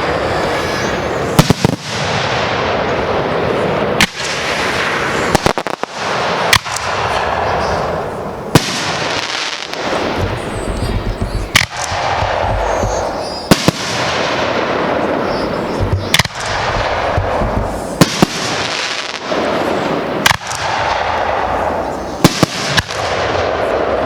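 Fireworks going off in a steady sequence: a sharp bang about every two seconds, each followed by a rushing noise that fades before the next one.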